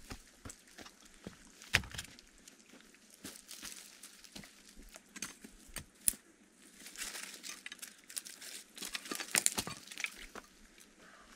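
Hands digging and scraping up wet clay at a riverbank, with footsteps crunching on dry soil and twigs: a run of small rustles and scrapes with a few sharp clicks, busiest in the last few seconds.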